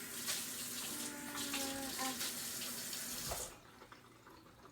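Tap water running into a container to measure out water for slime, shutting off about three and a half seconds in.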